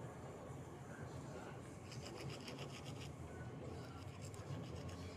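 Faint rapid scratching, in two short spells about two and four seconds in, over a steady low hum.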